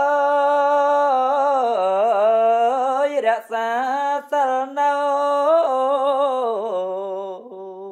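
A Buddhist monk's solo voice chanting Khmer smot, unaccompanied. He holds one long vowel with wavering ornamental turns, breaks off briefly twice a few seconds in, and trails off at the end.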